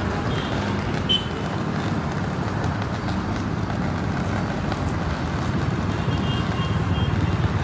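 Steady road traffic noise: a low rumble of passing cars and trucks, with a short high chirp about a second in.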